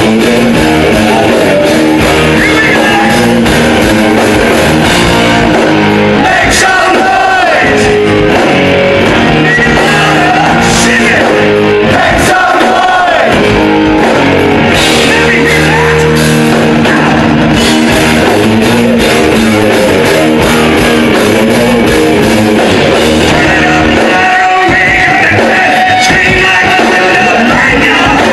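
Hard rock band playing live: distorted electric guitar, bass guitar and drums, with a male lead singer, loud and steady throughout.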